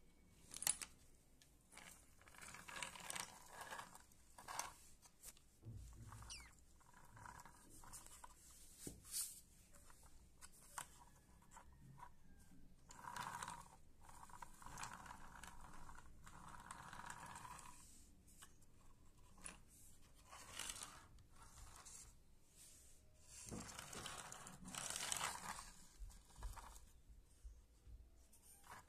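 Steel ball-bearing wheels of a homemade wooden toy truck rolling and grinding over rough concrete as it is moved by hand: faint gritty scraping in short patches, with scattered clicks and knocks.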